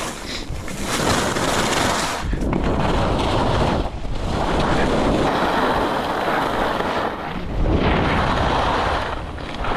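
Skis scraping over hard-packed, tracked snow on a downhill run, mixed with wind rushing over the microphone. The noise is loud and steady, with brief dips every couple of seconds.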